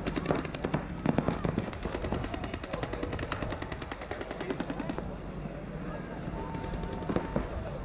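Paintball markers firing in rapid strings, several at once, a fast run of sharp pops that stops about five seconds in. A short steady tone sounds near the end.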